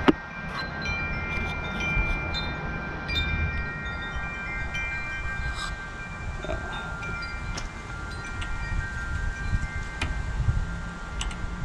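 Wind chimes ringing: several clear metal tones struck at irregular moments, each ringing on for a few seconds, over a low rumble.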